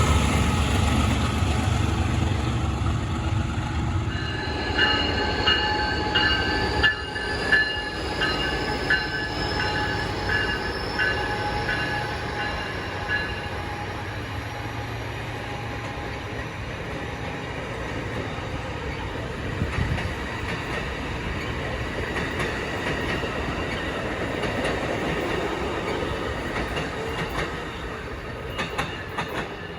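A train rolling past on the rails, its rumble easing after the first few seconds. High-pitched tones pulse evenly from about five to thirteen seconds in.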